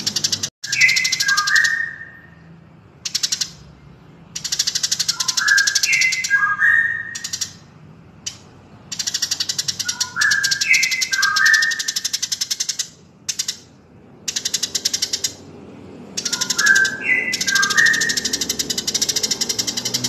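Recorded birdsong of Eurasian tree sparrow and white-rumped shama played in a loop: long, fast, high chattering rattles, and four times a short phrase of clear whistled notes stepping down in pitch.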